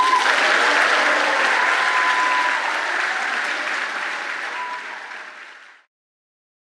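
Audience applauding, the clapping slowly fading and then cutting off about six seconds in.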